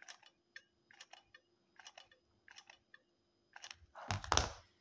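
Faint handling sounds of a hot glue gun and wine corks: a string of small clicks about every half second as glue is applied to a cork, then a louder rustling scrape near the end as the cork is handled.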